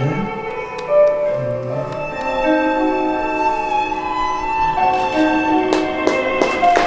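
Music with a violin carrying a slow melody of long held notes.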